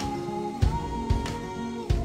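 Background music: an acoustic guitar tune with a steady beat.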